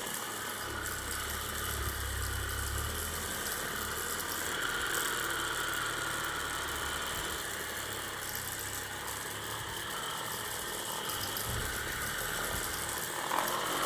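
Motor of a Ceragem-type massage device running steadily, a low hum with a light rattle.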